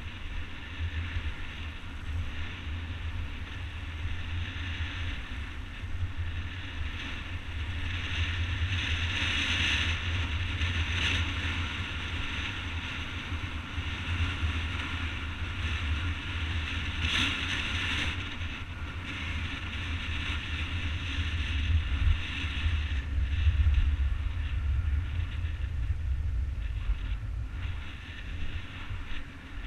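Skate wheels rolling over asphalt with wind buffeting the camera's microphone: a steady rush and low rumble, with a few brief louder bumps along the way.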